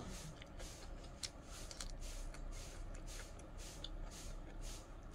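Close-up mouth sounds of chewing food: soft, wet pulses repeating about twice a second, with a few sharp clicks.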